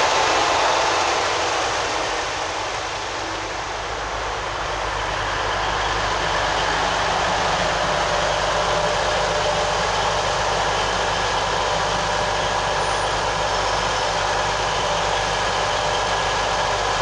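TransPennine Express Class 185 diesel multiple unit coming to a stop at the platform, then standing with its underfloor Cummins diesel engines idling in a steady drone.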